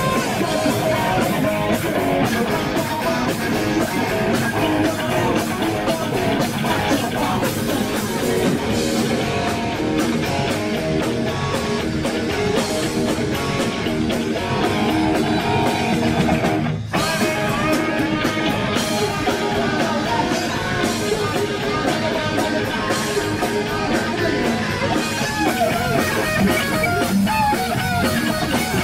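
Hard rock band playing live, with electric guitars over a drum kit. The sound drops out for a split second a little past halfway.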